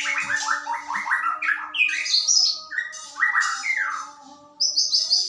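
White-rumped shama (murai batu) singing: quick runs of short, falling whistled notes, with a brief higher phrase near the end.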